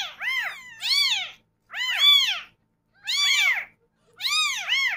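Very young kittens mewing: about five high-pitched calls, each rising then falling in pitch, roughly one a second.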